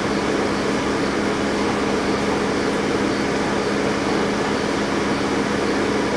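Steady mechanical hum over an even hiss, with a constant low drone that does not change.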